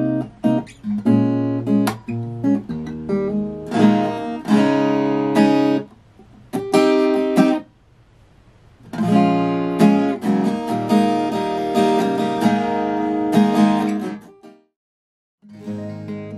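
Steel-string acoustic guitar played in strummed and plucked chord phrases, with short pauses between them. Near the end the sound cuts out completely for about a second, then the guitar comes back in.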